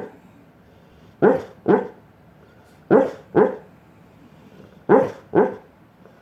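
Short, sharp bark-like calls in pairs: three double calls about two seconds apart, the two calls of each pair less than half a second apart, in a steady breathing-like rhythm.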